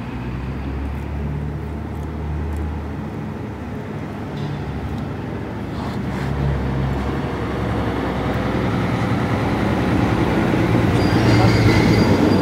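A large truck's engine running nearby: a steady low rumble that grows louder toward the end, with a brief high whine near the end.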